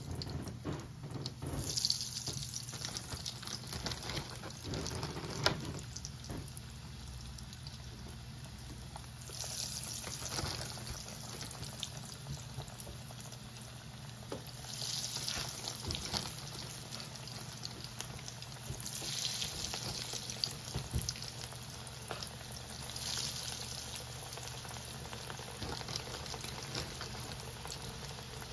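Battered fish fillets deep-frying in hot oil in a frying pan: a steady sizzle that swells five times, about every four seconds, as more fillets are lowered in.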